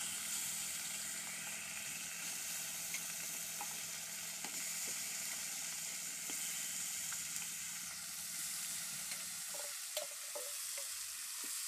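Fish pieces sizzling steadily as they shallow-fry in hot oil in a kadai, with a few light clicks of a metal spatula against the pan as the pieces are turned.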